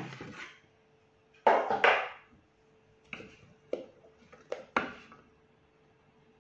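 Plastic Thermomix spatula knocking and scraping inside the stainless steel mixing bowl as batter is stirred by hand. There is a louder knock from handling the bowl and lid about a second and a half in, then several shorter scrapes and taps.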